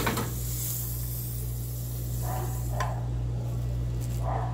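A small pat of butter sizzling as it melts in a hot nonstick frying pan while the pan is tilted and swirled; the sizzle is strongest in the first second or so, then fades.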